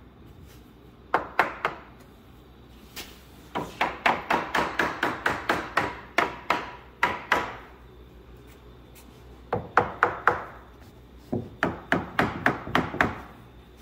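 A hammer tapping on wood in quick runs of strikes, about four a second, with pauses between runs. The longest run lasts about four seconds in the middle.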